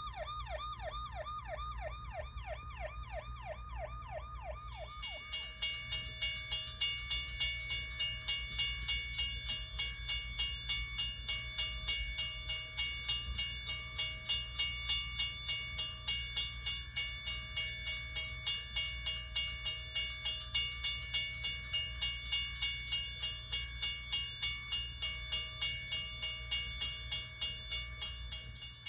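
An emergency-vehicle siren in a fast yelp, its pitch sweeping up and down about three times a second, that cuts off about five seconds in. A ringing bell of several steady metallic tones then takes over, struck about twice a second, like a railroad crossing or locomotive bell.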